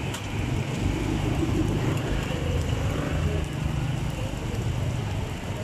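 Banh xeo batter frying in a wide metal pan, a steady sizzle over a constant low rumble.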